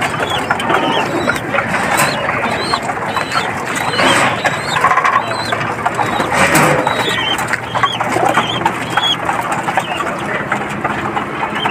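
Pigeon-loft bird sounds: many short high chirps repeating several times a second over a constant rustle and clicking of birds moving about.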